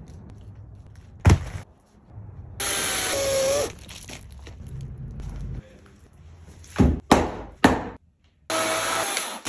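Heavy wooden thunks as logs are knocked and shifted, about one near the start and three close together later, between short bursts of a cordless chainsaw running.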